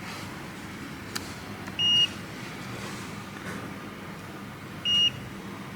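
A multimeter's continuity beeper sounds twice, about three seconds apart, each beep a short steady tone of about a quarter second, as the probes touch points on a laptop logic board during a check for a short circuit. There is a small click about a second in.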